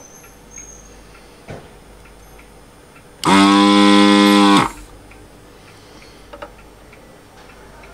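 Desoldering station's vacuum pump buzzing for about a second and a half, a loud steady hum that starts and stops abruptly as the trigger is pressed and released, sucking molten solder out of a through-hole. A few faint clicks before and after.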